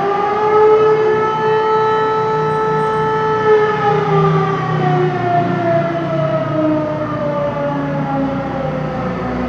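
Civil defence air-raid siren sounding in a warning-system test. Its tone holds high for about three seconds, then slowly falls in pitch, with a low rumble underneath.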